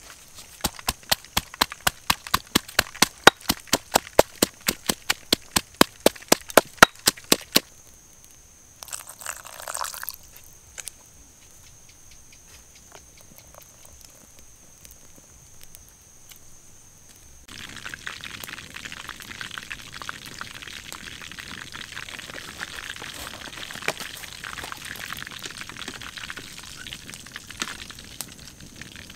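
Pestle pounding red chillies, garlic and salt in a stone mortar, about four sharp strikes a second for some seven seconds. Then liquid is poured briefly into the paste, and from about two-thirds of the way through a steady sizzle of hot oil deep-frying over a wood fire takes over.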